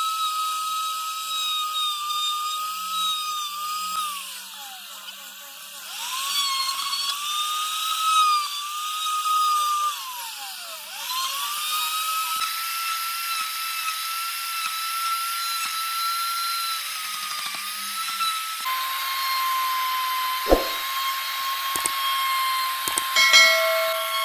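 High-speed power carving tool running on wood: a steady high whine that sags in pitch twice as the cutter bites into the wood and recovers. Near the end it runs at a lower, rougher pitch, with a few sharp knocks.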